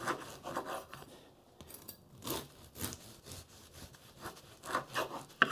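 A bread knife sawing through the crisp crust of a freshly baked white loaf on a wooden board, in a few uneven crackling strokes, with a sharp tap near the end.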